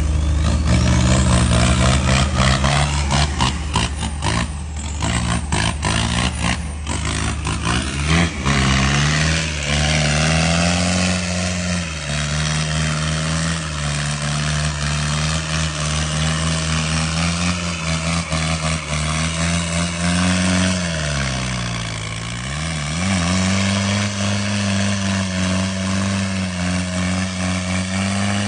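Off-road vehicle engine running loudly, with a rapid harsh clatter for the first several seconds before settling to a steadier run. The revs drop briefly past the middle, then pick up again. The engine is described as knocked, a sign of internal engine damage.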